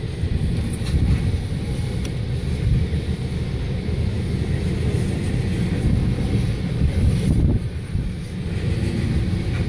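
Freight train of tank cars rolling past at a level crossing: a steady low rumble, muffled from inside a stopped car.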